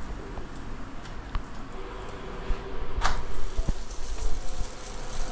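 Light kitchen handling sounds as rounds of dough are worked on a tray: a few soft knocks and clicks in a quiet room, one a little sharper about three seconds in.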